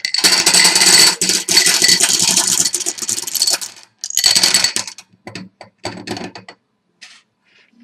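Bingo marbles poured from a cup into a bingo cage: a dense clatter for about three and a half seconds, a second short pour just after that, then scattered clicks that thin out as the marbles settle.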